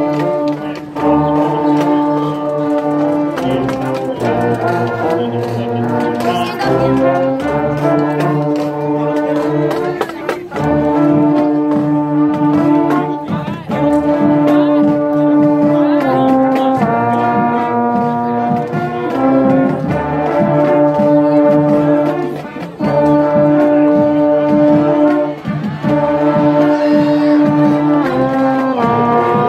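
Marching band brass section playing a loud, repeating stands tune: long held chords that step to new notes every couple of seconds, with percussion hits underneath.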